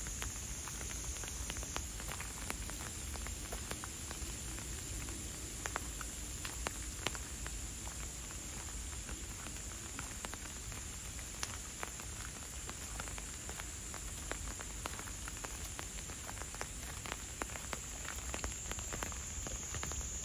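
Steady rain falling, with many separate raindrops ticking.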